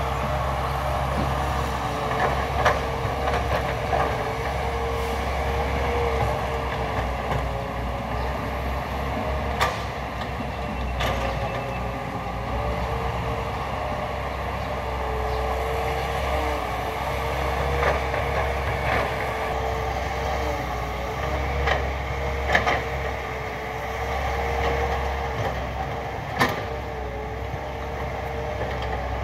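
Caterpillar 312B hydraulic excavator's diesel engine running steadily under working load, with a wavering whine over the low engine hum. A few sharp knocks stand out now and then as it digs and loads a dump truck.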